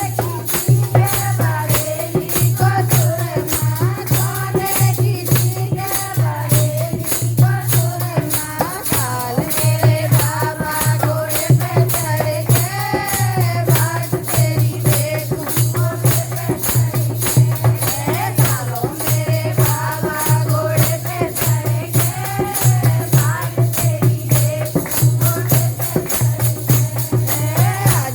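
Hindi devotional song with a solo sung vocal over fast, steady percussion with jingling tambourine and shakers and a pulsing bass beat.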